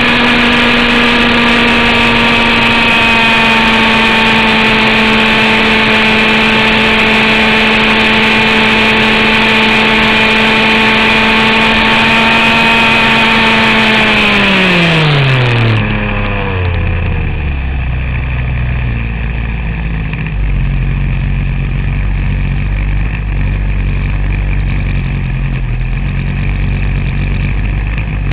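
Zenoah G29RC two-stroke gasoline engine of an RC helicopter, heard from on board, running at a steady high pitch. About halfway through the pitch drops steeply as the engine throttles down, then it settles into a low, steady idle.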